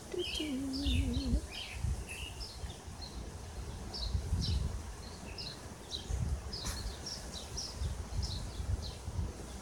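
Small birds chirping repeatedly in short, scattered calls, over low bumps and rubbing of handling noise close to the microphone, with a sharp click about two thirds of the way through. A brief low wavering tone sounds near the start.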